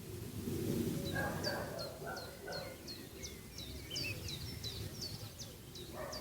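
A small bird calling over and over in short, high, falling chirps, about two a second, from about a second in until near the end. A few lower bark-like calls, a dog barking in the distance, come early on over a steady low outdoor rumble.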